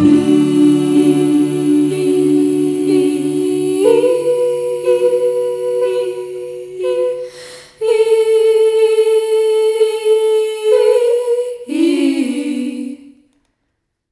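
Wordless vocal notes held long in layered harmony, stepping up in pitch about four seconds in. They break off briefly just past halfway, return, waver on a last note and stop shortly before the end.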